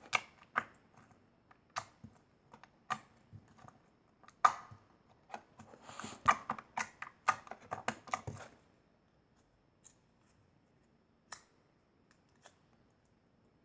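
Slime being squished and stretched by hand, giving irregular sticky clicks and pops, busiest in the middle and thinning out to a few isolated clicks near the end.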